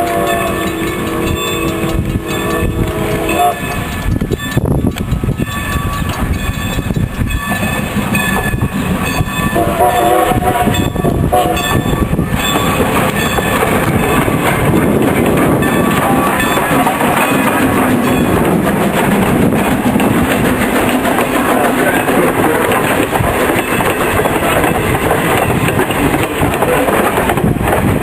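Steam locomotive's whistle blowing twice, a long blast at the start and a shorter one about ten seconds in, over the train running along the rails; the running noise grows a little louder from about twelve seconds in as the train comes by.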